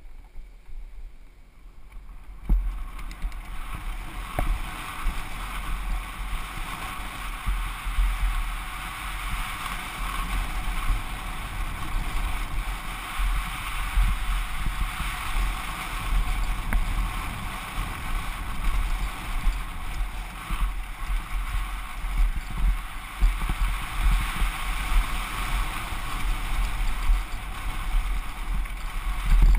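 Downhill mountain bike riding a dry dirt trail, heard from a helmet camera: wind buffeting the microphone with a constant low rumble, over the hiss and rattle of the tyres and bike on loose dirt. It starts faintly and builds over the first couple of seconds, with a few sharp knocks from bumps.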